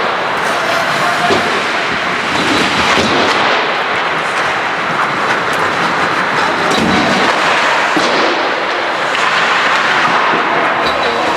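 Ice hockey play on a rink: a steady hiss of skates on ice with scattered clacks of sticks and puck.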